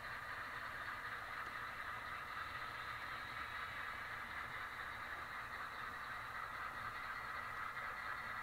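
Model railroad diesel locomotives pulling a train of covered hopper cars past, giving a steady running sound of motors and wheels on the track.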